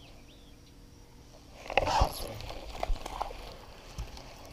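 A Zara Spook topwater lure slapping and splashing on the water surface as it is worked, loudest about two seconds in, followed by a few single sharp clicks.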